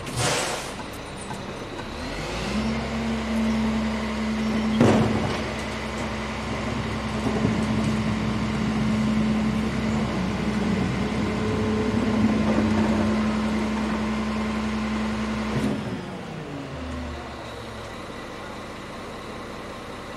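CCC Wittke manual side-loader garbage truck: a short hiss of air at the start, then the truck runs with a steady, louder hum for about thirteen seconds, with a sharp clank about five seconds in, before dropping back to a quieter idle.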